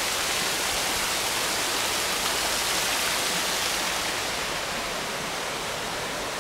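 Steady rushing and splashing of falling water from Schönbrunn's Neptune Fountain, a little quieter and duller after about four seconds.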